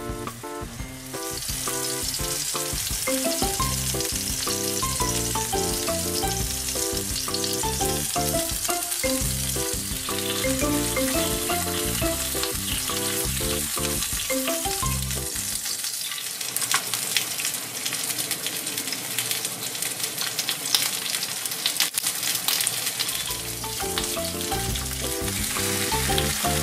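Stuffed green peppers frying in oil in a frying pan: a steady sizzle that starts about a second in and runs on. Background music plays under it, dropping out for several seconds past the middle.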